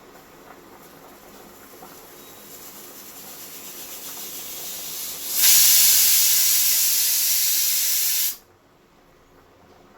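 Pressure cooker venting steam: a hiss that builds over a few seconds, then bursts into a loud blast of steam about five seconds in and cuts off suddenly about three seconds later.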